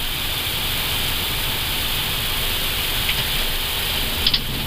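Steady rushing noise of airflow and engines in an Airbus A320 cockpit as it touches down and begins the landing roll, with a brief click near the end.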